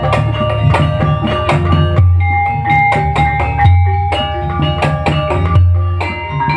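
Instrumental ebeg (Banyumas kuda lumping) accompaniment music: drums and sharp percussion strokes over sustained tuned notes and a steady low bass line that changes note every second or two.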